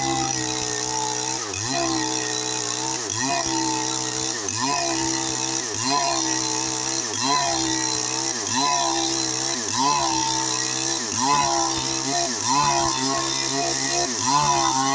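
Stihl MS 382 two-stroke chainsaw with a 25-inch bar running under load while cutting wood. Its engine note dips briefly and recovers about every second and a half as the saw is pressed into the cut.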